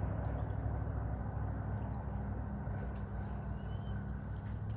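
Steady low engine drone that fades slightly, with a few faint clicks.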